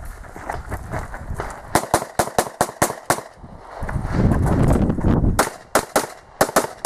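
Pistol shots fired in quick strings during an IPSC practical shooting stage: a run of about eight rapid shots, a low rumble in the pause, then another run of several shots near the end.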